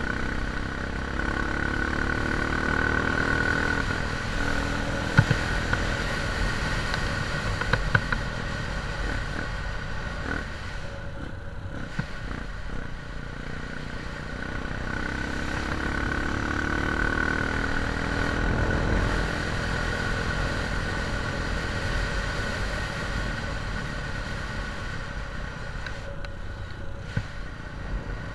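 A small vehicle engine running as it travels along, rising in pitch twice as it speeds up, over a steady rumble and a thin steady whine. There are a few sharp clatters about five to eight seconds in.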